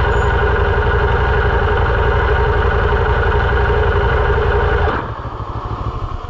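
Moto Morini X-Cape 650's parallel-twin engine running at steady revs, then dropping noticeably quieter about five seconds in.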